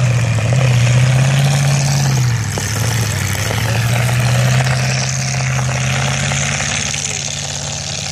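Demolition derby cars' engines running loud. One engine's low drone shifts in pitch a few times as the throttle changes, over a steady wash of noise from the other cars.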